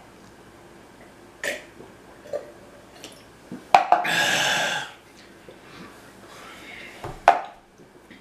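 Plastic cups set down on a wooden table with sharp knocks, a little before four seconds in and again near the end. Right after the first knock comes a loud, breathy exhale of about a second from a man who has been gulping milk to cool a chili burn.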